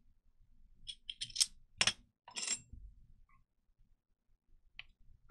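Light metal clinks and clicks as small parts are handled on an RC crawler's aluminium beadlock wheel: a quick cluster of clinks about one to two and a half seconds in, then two faint ticks near the end.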